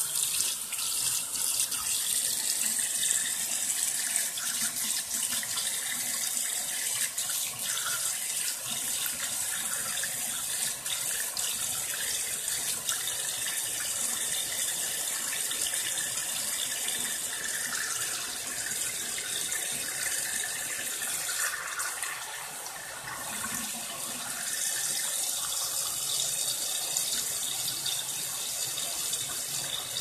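A tap running a steady stream into a bathroom sink, the water splashing on the basin and draining away. It eases briefly about two-thirds of the way through, then comes back.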